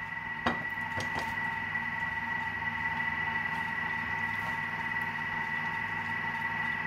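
Steamed potato slices sliding out of a plastic Thermomix steaming basket into a glass baking dish, with soft knocks about half a second and a second in. Underneath, a steady whine and hum.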